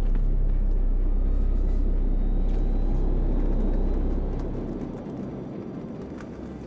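A deep, steady low bass rumble of cinematic sound design that starts abruptly, holds for about four seconds and then fades away under a soft background hiss.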